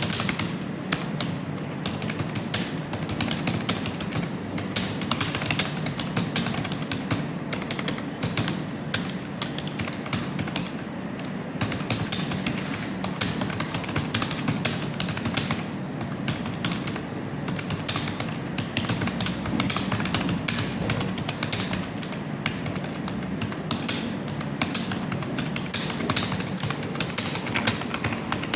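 Fast, continuous typing on a computer keyboard, a steady stream of key clicks with a couple of brief let-ups.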